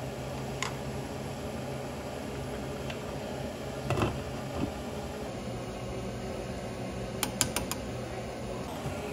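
Steady mechanical hum, like a fan or appliance motor running. A few light knocks sound over it, a louder one about four seconds in, and a quick run of four clicks near the end.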